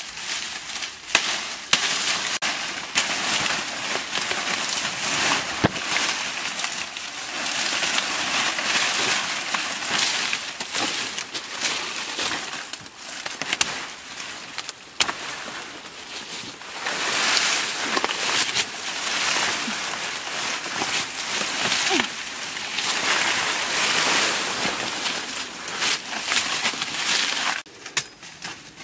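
Dry, papery banana leaves rustling and crackling as they are pulled and pushed aside by hand, with irregular snaps and crackles throughout.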